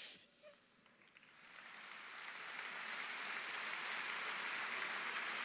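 Large crowd applauding in a big hall, building gradually from about a second in and then holding steady.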